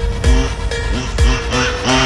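Electronic dance music with heavy bass thumps and sliding synth tones.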